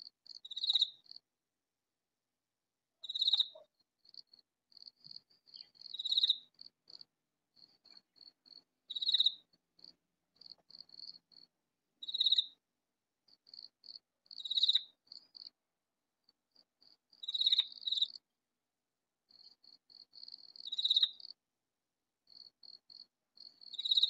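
Katydid calling loudly: a run of soft, high ticks that builds into a louder high-pitched phrase, repeated about every three seconds.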